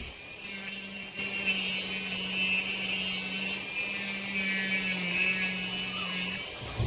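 Dremel 4000 rotary tool with a bullet-shaped grinding bit running at high speed, grinding down a rooster's hard spur to round off the clipped edge. It is a steady motor hum with a high whine that wavers in pitch as the bit bears on the spur. It grows louder about a second in and stops near the end.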